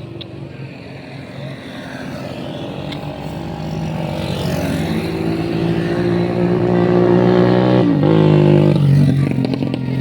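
A bus engine running and growing steadily louder as it draws near. Its pitch drops briefly and climbs back near the end.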